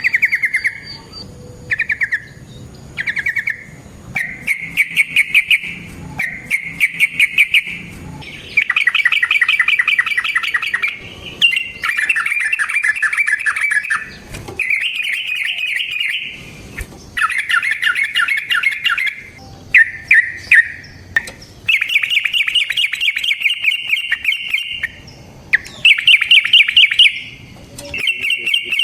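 Yellow-vented bulbul (trucukan) singing a long run of rapid chattering trills, phrase after phrase with short pauses between, each a fast stream of notes at much the same pitch.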